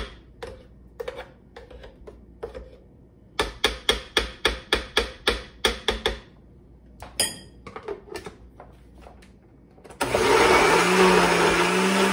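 Metal spoon tapping and scraping in a glass blender jar, with a quick run of clicks about four a second. About ten seconds in, an electric countertop blender switches on and runs steadily, grinding garlic cloves and olive oil into a thick paste.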